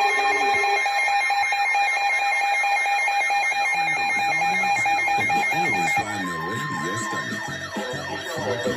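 Several Midland and Sangean weather alert radios sounding their warning alarms at once, steady electronic beeping tones layered over each other, which signal a severe thunderstorm warning. About six seconds in, the main tone cuts off and the sound drops a little as a button is pressed on one radio. A short higher beep and warbling alert tones carry on.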